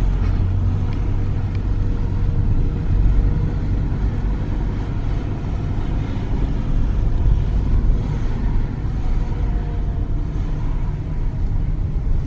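A car driving along a street, heard from inside the cabin: a steady low engine and road rumble.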